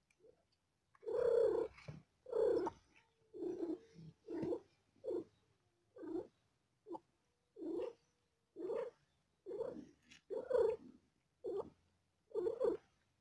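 Cat making short, evenly spaced pitched calls, about one a second, starting about a second in.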